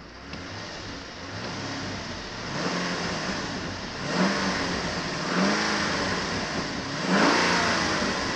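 Holden Calais 6.0-litre V8 engine running in park and revved up and down several times, the revs climbing to around 3,000 rpm.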